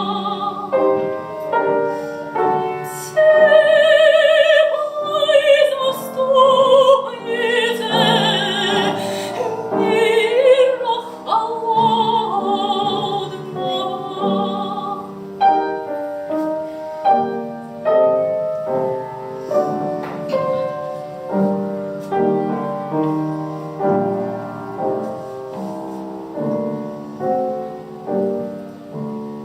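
A woman's classical voice with wide vibrato sings a Russian romance with piano accompaniment. About halfway through the voice stops and the piano plays on alone.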